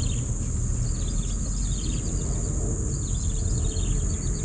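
Outdoor insect chorus: a steady high-pitched drone with repeated bursts of chirping calls, over a strong low rumble.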